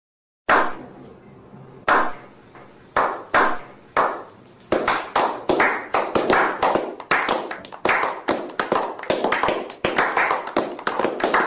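A slow clap by a small group: a few single hand claps about a second apart, quickening from about five seconds in into steady clapping by several people.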